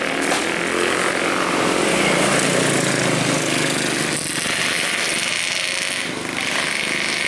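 Intercity coach bus driving past on the road: steady engine and tyre noise, with the engine's hum strongest in the middle of the pass.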